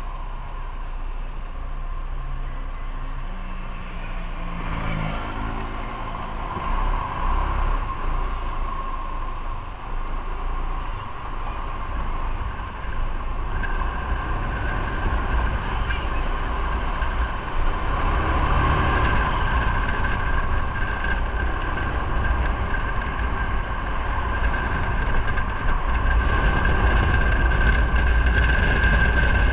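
Motorcycle engine running while riding in city traffic, with wind and road noise. The engine grows louder over the last few seconds as the bike speeds up.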